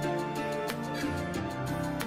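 Background music: sustained instrumental notes changing pitch every fraction of a second, with a few sharp percussive hits.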